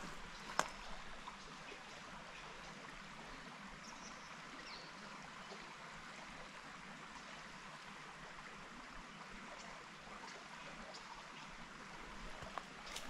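Creek water running, a steady, even rush of flowing water. A single sharp knock or step comes about half a second in.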